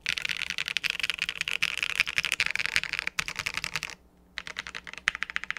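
Fast typing on a TKD Cycle 8 tenkeyless mechanical keyboard fitted with Epomaker Jade Blossom switches and PBT keycaps, giving a dense stream of keystroke clacks. It pauses for about half a second near four seconds in, then resumes.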